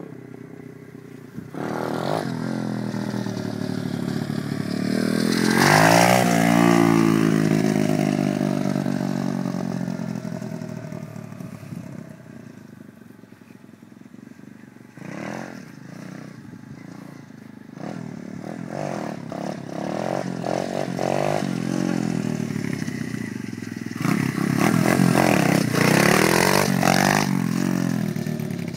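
125cc pit bike's single-cylinder four-stroke engine running and revving: it climbs to a loud peak with a sweeping pitch about six seconds in, gives short throttle blips in the middle, then revs hard and unevenly near the end as the bike rides off.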